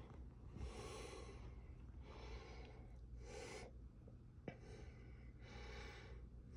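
Faint breathing close to the microphone: a run of soft breaths in and out, about one a second, with a small click about four and a half seconds in.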